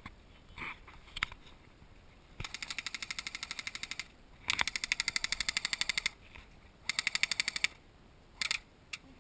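Airsoft gun firing on full auto: three rapid bursts of about ten shots a second, the middle one the loudest and the last one short. A few single clicks come before and after them.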